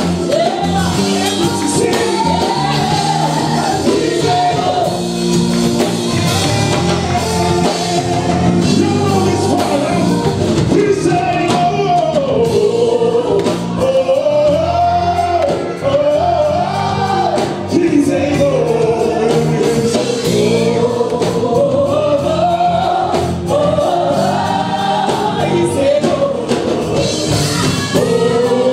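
A small gospel choir singing live, with lead singers on microphones over the group's backing vocals and musical accompaniment.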